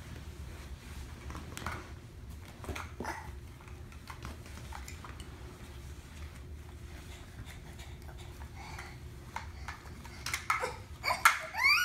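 Scattered light clatter and knocks over a steady low hum, then near the end a young child starts to cry.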